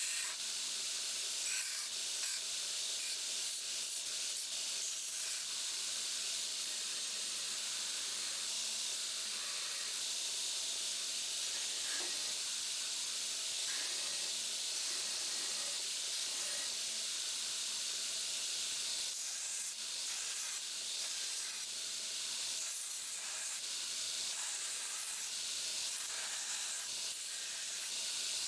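Damascus steel knife blade pressed against a 2x72 belt grinder's running abrasive belt as the bevel is ground: a steady, high hiss of the belt cutting the steel.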